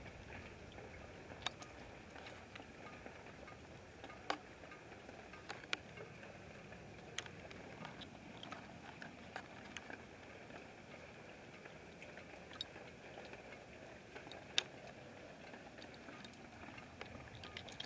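Faint steady background noise with a handful of short, sharp ticks scattered through it.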